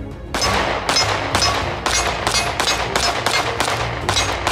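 CZ P10 C pistol with a compensator fired in a steady string, about two shots a second, starting a moment in, over background music.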